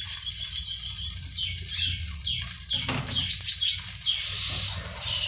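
Omelette frying in oil in a nonstick pan, a steady sizzle, with a bird chirping over it in a run of quick falling chirps.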